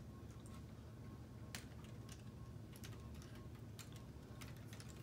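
Faint, scattered clicks and taps of plastic K'Nex pieces being handled as the ride model's seats are unclipped, with one sharper click about a second and a half in.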